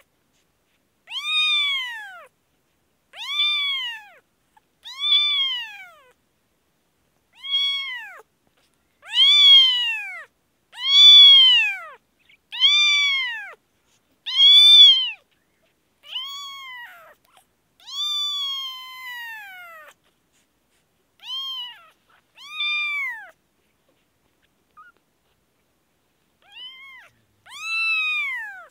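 Newborn kitten meowing repeatedly: about fifteen high cries, each rising then falling in pitch and mostly under a second long, with a longer drawn-out cry a little past the middle.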